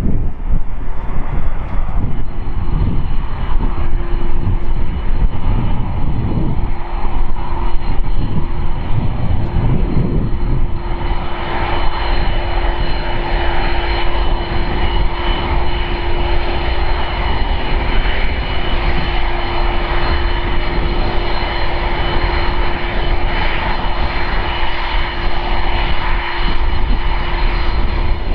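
Twin GE CF6-80C2 turbofans of a Boeing 767-300ER running at taxi power: a steady jet whine with high tones over a low rumble. It grows louder and brighter about eleven seconds in as the airliner draws close.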